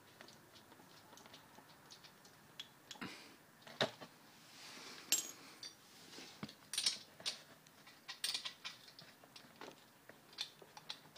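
Small metallic clicks and clinks of hand tools and bolts being worked on a pit bike engine while the cam chain tensioner bolts are undone. There are irregular light ticks, with a few sharper knocks about four, five, seven and eight seconds in.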